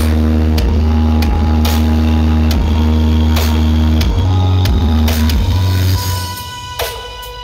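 Dance music played very loud through a large stacked sound system, with long, heavy bass notes under a steady beat. About six seconds in, the bass drops out and the music thins and quietens.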